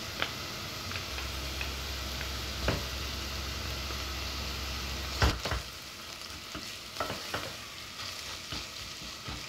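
Chopped onions frying in olive oil in a stainless steel pot, sizzling steadily as tomato and pepper paste are added and stirred in with a wooden spoon. A few sharp knocks of the spoon, the clearest about three and five seconds in.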